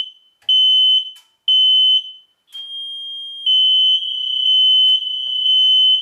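Hardwired ceiling smoke alarm sounding its test alarm with the test button held: loud, high-pitched half-second beeps in a group of three, then from about two and a half seconds in a longer unbroken tone that swells and dips.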